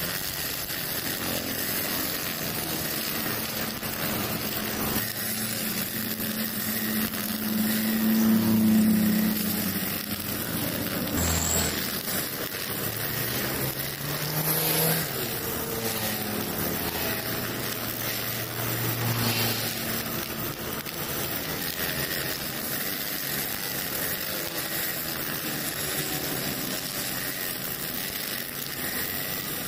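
Four-stroke brush cutter running with its nylon trimmer line spinning and cutting grass short. The engine pitch rises and falls as the throttle varies, loudest about eight to nine seconds in.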